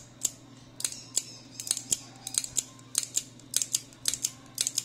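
Quick, irregular metal clicks, about four a second and often in pairs, from a revolver's extractor rod and spring assembly being worked by hand.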